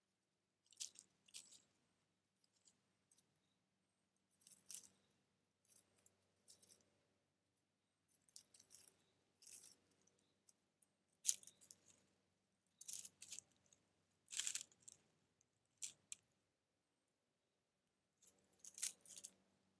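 Dry leaves rustling and crunching in short, irregular bursts as red fox cubs move, sniff and dig about the den.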